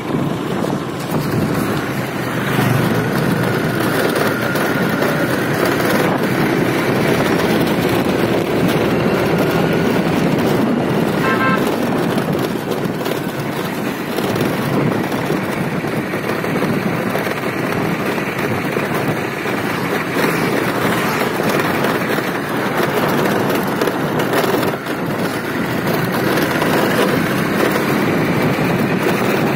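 Motorized two-wheeler being ridden along a street: a steady rush of wind and road noise with the engine running underneath. About a third of the way in comes a brief, chopped horn toot.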